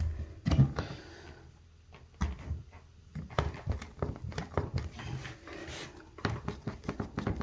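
Irregular light knocks and clicks of things being handled, a string of them starting about two seconds in after a brief quiet spell.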